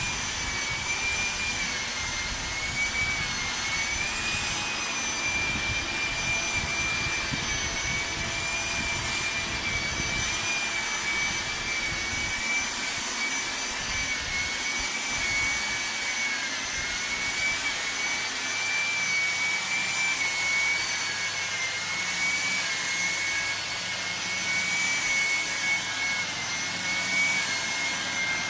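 Electrolux ZAP9940 vacuum cleaner running at its maximum speed setting: a steady motor whine that wavers slightly in pitch over a rush of suction air.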